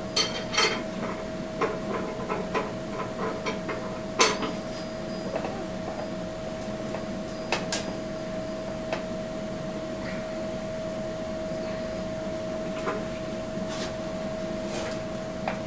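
Scattered light clicks and knocks of hand tools and metal parts being worked, busiest in the first few seconds with a sharper knock about four seconds in, over a steady high-pitched hum.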